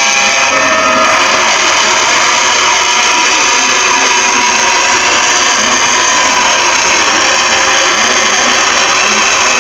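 Loud, harsh, steady drone of many stacked tones over a hiss: a distorted mock Emergency Alert System alarm.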